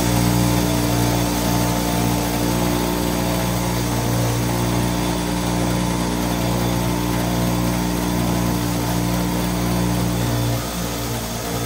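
Motor-driven wire wheel running steadily with a hum and a hiss, wire-brushing an old steel combination wrench to clean off grime and uncover its maker's stamp.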